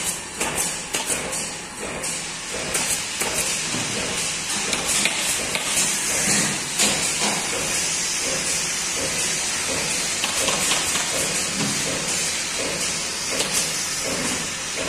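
Factory-floor noise: a steady hiss with scattered clatter and knocks.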